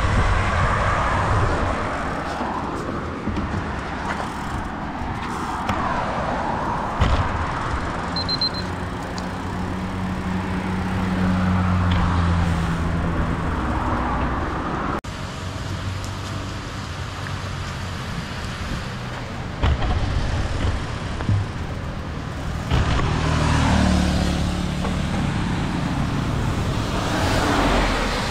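Road traffic: motor vehicles passing close by over a constant road noise, their engine hum swelling and fading, with louder passes around a third of the way in and again near the end. A short high beep sounds about eight seconds in.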